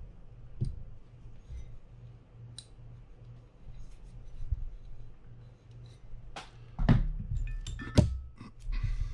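Small clicks and light knocks of a Penn Spinfisher 750SS spinning reel's parts and small hand tools being handled on a workbench. Two louder knocks come about seven and eight seconds in.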